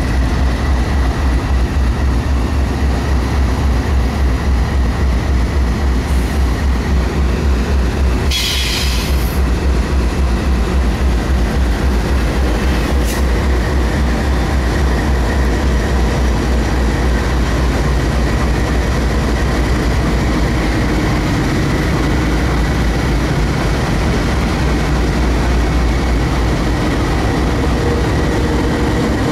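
CSX diesel locomotives accelerating past close by with a heavy, steady rumble of engines under load, with a brief hiss about eight seconds in.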